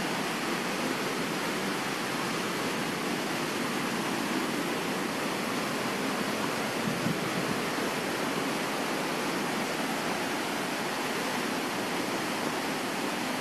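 Rushing water of a rocky hill stream fed by a waterfall: a steady, even rush with no breaks.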